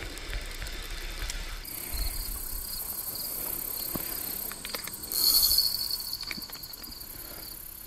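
Crickets and other insects chirping in a steady high chorus. A louder, high whirring stands out for a few seconds in the middle.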